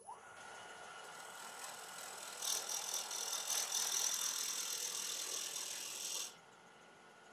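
Bowl gouge cutting the outside of a damson blank spinning on a wood lathe, a rattling cut that grows louder about two seconds in and stops suddenly about six seconds in, leaving the lathe running with a faint steady whine. The blank is not yet fully round, still carrying small flat spots.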